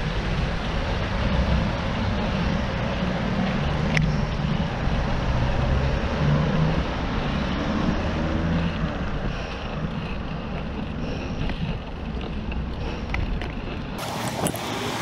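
Wind rumble on the microphone of a moving bicycle, mixed with road traffic passing alongside. Near the end the rumble drops away abruptly, leaving traffic noise.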